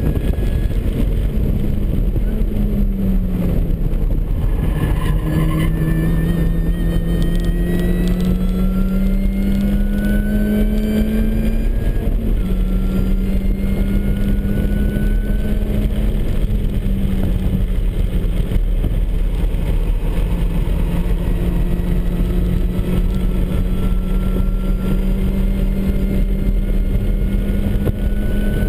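Interior sound of a supercharged MINI Cooper S's four-cylinder engine driven hard on track, with a steady wash of road and wind noise. The engine note climbs steadily and drops back three times, about four, twelve and seventeen seconds in, as the driver changes gear.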